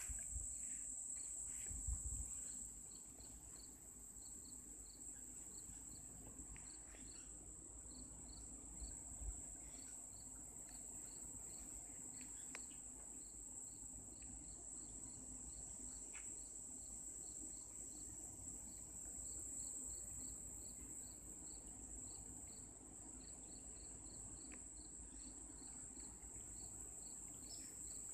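Insect chorus: a steady high-pitched drone with a row of rapid short chirps beneath it. A few soft handling bumps come in the first two seconds.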